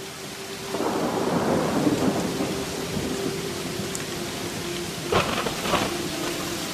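Thunderstorm sound: rain hissing steadily as a low thunder rumble swells up about a second in, followed by two sharp thunder cracks near the end. A faint steady held tone runs underneath.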